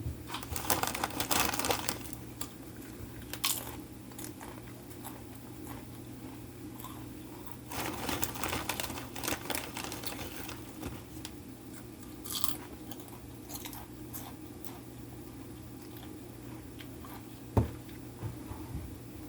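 Close-up chewing and crunching of food, in two dense spells of crunching about a second in and about eight seconds in, with scattered smaller crunches between. A single sharp knock near the end.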